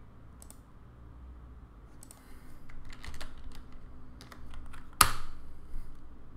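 Typing on a computer keyboard: a quick run of keystrokes, ending in one loud key press about five seconds in, as a command is entered in a terminal.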